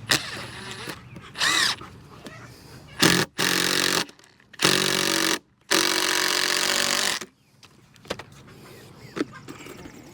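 Power drill running in three bursts of about a second each, the last the longest, after a short, higher warbling sound about a second and a half in.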